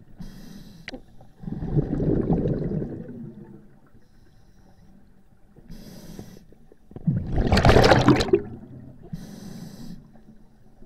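A scuba diver breathing through a regulator underwater: a short hissing inhale, then a loud rush of exhaled bubbles. The cycle comes twice, with a third inhale near the end.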